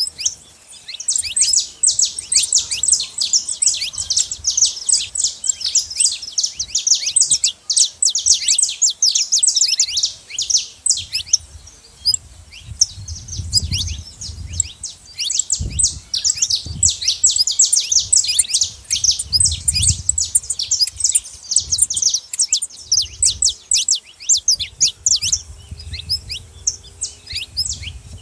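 Saffron finch song: a fast, unbroken chatter of high, quick chirps. A low rumble comes and goes in the background.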